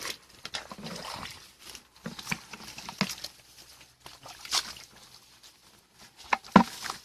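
Shallow muddy water splashing and sloshing in short, irregular bursts as a man wades and grabs fish by hand, with the sharpest splashes about six and a half seconds in.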